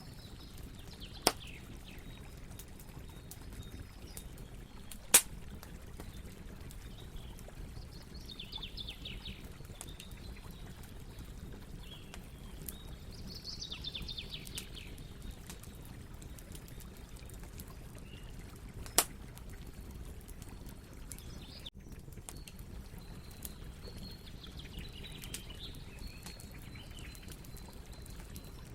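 Campfire burning with a steady low rustle and three sharp, loud pops, about a second in, about five seconds in and again well past the middle. Faint birdsong of quick runs of descending notes comes and goes in the background.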